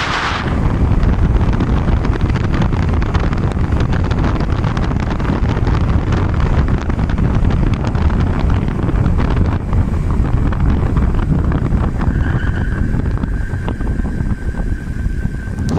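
Wind buffeting the microphone, with a low rumble, while riding an e-bike. About twelve seconds in, a thin steady whine joins for a few seconds.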